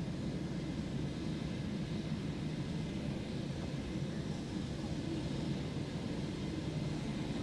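Steady low rumble of jet aircraft noise on an airport apron, with a fainter high band above it.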